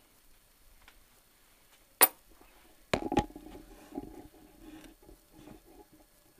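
Steel 1-2-3 block being handled: taken from a metal tool-chest drawer and set into the milling vise. There is one sharp metallic click about two seconds in. About a second later come two clunks, then a few seconds of faint ringing rattle.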